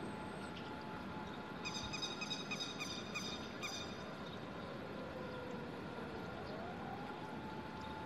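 Grey-headed lapwing giving a run of about seven short, sharp calls over about two seconds, starting about a second and a half in, over a steady background hum.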